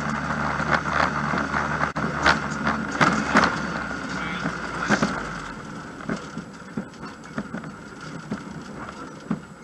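Rally car's engine running, heard inside the bare, roll-caged cabin, with scattered clicks and knocks of cabin rattles. The engine's low hum fades away about halfway through, leaving only the clicks.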